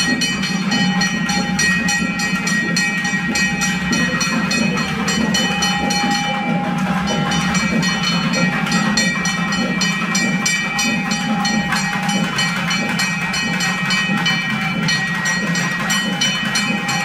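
Loud festival dance music: rapid, evenly spaced drumbeats under sustained reedy wind tones whose notes are held for a second or so and change now and then.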